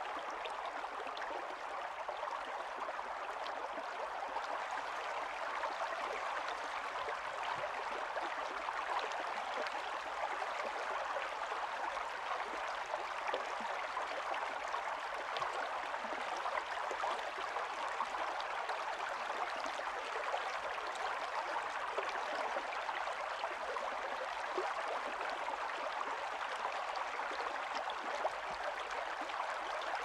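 Running water: a steady, even rush speckled with fine trickling ticks.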